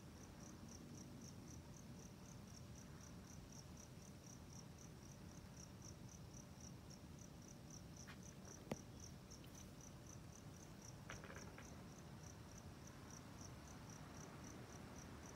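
A cricket chirping steadily, about four chirps a second, faint over a low background rumble. A single sharp click about nine seconds in.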